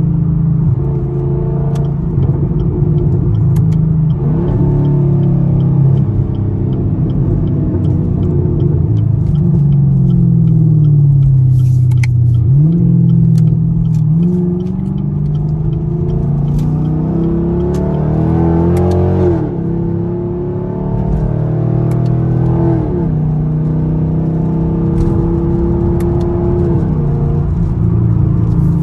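Straight-piped 6.2 L V8 exhaust of a 6th-gen Camaro SS, heard from inside the car while driving. The engine note drops about a third of the way in, then climbs steadily under acceleration for several seconds and falls back about two-thirds of the way through before settling to a steady drone.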